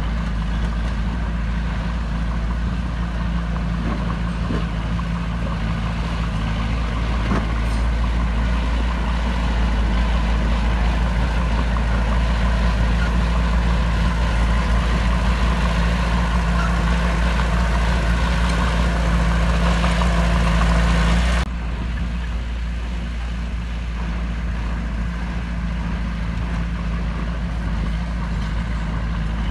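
Heavy diesel earthmoving machinery engine running steadily under work. About two-thirds of the way through, the sound cuts abruptly to a slightly quieter, duller engine sound.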